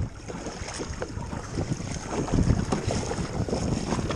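Wind buffeting the microphone over water sloshing around a kayak, with scattered small knocks and clicks. The rumble swells about halfway through.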